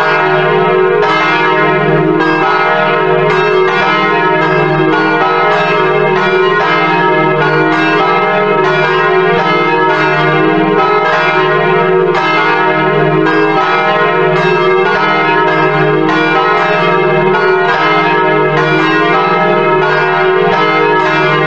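A peal of church bells ringing continuously, one stroke overlapping the next with no break.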